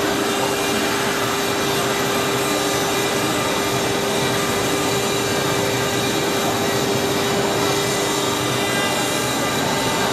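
Twin spindle motors of a four-axis CNC router running steadily while carving marble columns turned on rotary axes: a constant whine over an even hiss of cutting noise.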